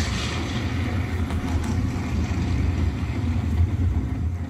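Loud steady rumbling sound effect, engine-like, with a deep hum under a hiss, played over a stage's sound system.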